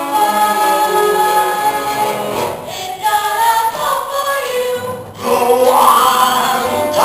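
Chorus of young voices singing a show tune, holding long notes, with a short break about five seconds in before a louder phrase.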